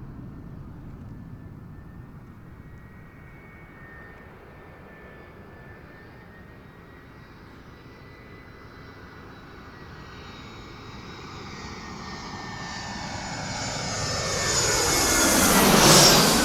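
Fixed-wing airplane coming in to land and passing close overhead: its engine whine grows steadily louder, peaks near the end, and drops in pitch as it passes.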